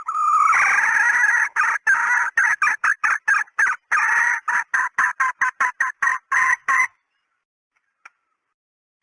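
Female red junglefowl (hen) calling, as played for a lure. An unbroken cackle for about a second and a half breaks into a quick run of short clucking notes, about four a second, which stop suddenly about seven seconds in.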